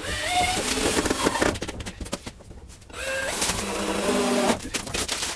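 Cordless drill running in two bursts about a second and a half long with a short pause between, its motor whine rising and stepping in pitch as the trigger is worked, driving screws into the wooden window framing.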